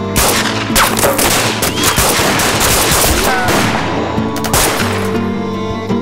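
Rapid, overlapping pistol shots in a gunfight, a dense fusillade that breaks off about five seconds in. A music score with bowed strings plays underneath.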